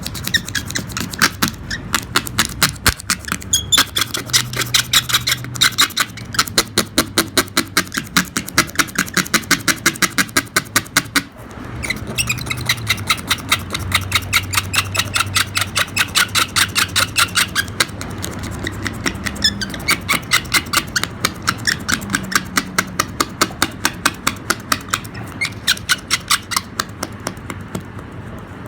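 Razor blade scraping across windshield glass in quick repeated strokes, about three a second, with a brief pause about eleven seconds in. The blade is held at a 90-degree angle to shave cured repair resin flush with the glass over a filled rock chip.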